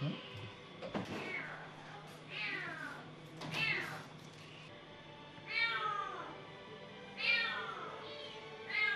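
Cats meowing repeatedly, about six separate cries, each falling in pitch, one every second or two.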